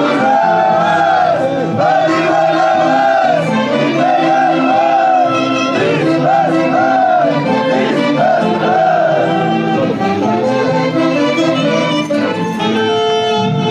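Andean típica orchestra music: a high melody with a wavering vibrato, in short repeated phrases, over a steady accompaniment.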